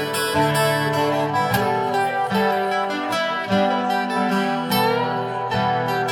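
Instrumental passage of a rock song: guitars, including strummed acoustic guitar, playing sustained chords with a band.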